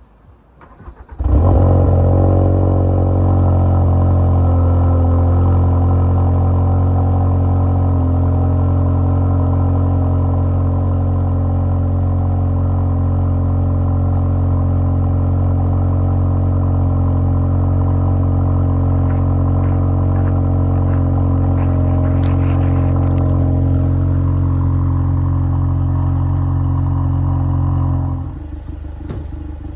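Ford Focus ST's 2.3-litre turbocharged four-cylinder engine running at a steady, even idle. It starts suddenly about a second in and drops away shortly before the end.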